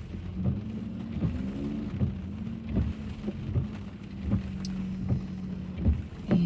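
Steady low engine and road hum inside a moving car, with scattered soft knocks.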